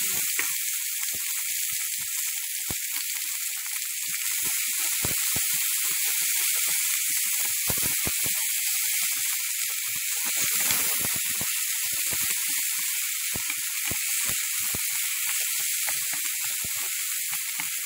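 Chopped red onion and garlic sizzling in hot cooking oil in a frying pan: a steady hiss with many small pops and crackles.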